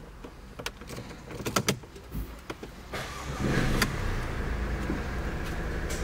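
A few sharp clicks, then about three seconds in the Mercedes-Benz GLA200's four-cylinder engine starts and settles into a steady idle.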